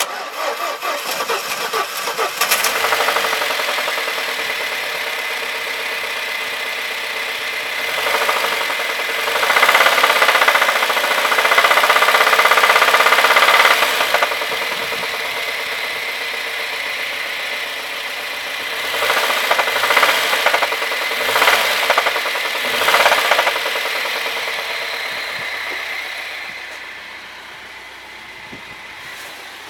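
A running engine with a knock in it. It starts abruptly and grows louder twice for several seconds before settling, then fades toward the end.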